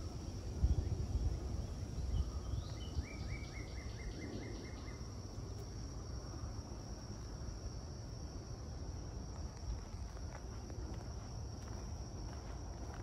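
Insects droning steadily in one high, even tone, with a bird singing a quick trill of about a dozen repeated notes about three seconds in. Low rumbling, with a few thumps in the first couple of seconds, sits underneath.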